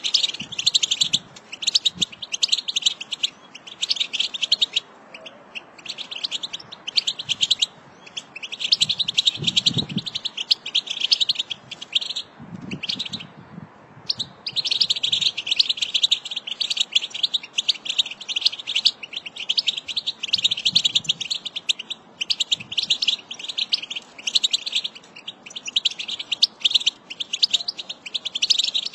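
American goldfinch song: long runs of rapid twittering and chirping notes, broken by short pauses, with a longer break about twelve seconds in.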